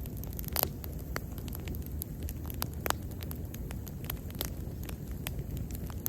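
Wood bonfire burning: a steady low rumble of flame with irregular sharp crackles and pops, two louder snaps about half a second and three seconds in.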